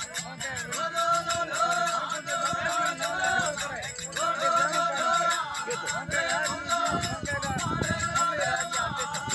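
Rajasthani folk bhajan music: a melodic line in repeating ornamented phrases over a fast, steady beat of high percussion.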